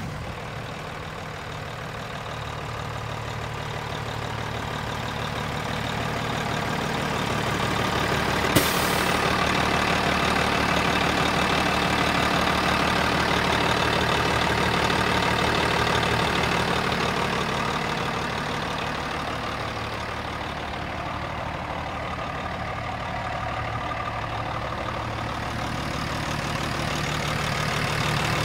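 1998 International dump truck's diesel engine idling steadily just after starting, growing louder over the first ten seconds. A single sharp click sounds about eight seconds in.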